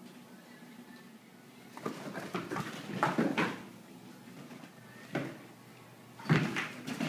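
Dogs starting to play: a run of quick knocks and scuffles about two to three seconds in, another thump about five seconds in and a louder one near the end, as the dogs bump and scramble on the floor.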